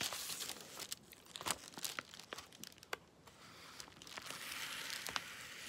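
Paper envelope being handled and opened by hand: crinkling and rustling with scattered small ticks, and a longer, steadier rustle about four seconds in.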